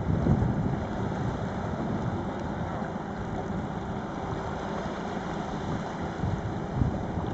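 Wind buffeting the microphone in uneven gusts, a steady low rumbling rush with no distinct events.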